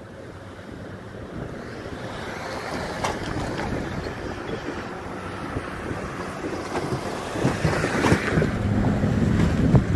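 Road traffic at a railroad grade crossing: cars and trucks driving past, growing louder toward the end, with a few sharp knocks. Wind buffets the microphone.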